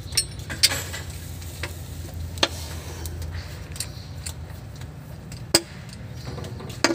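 Hand wrench clinking against bolts and metal on the transmission of a Mitsubishi Adventure, a scatter of sharp metallic clicks, the loudest about five and a half seconds in, over a steady low hum.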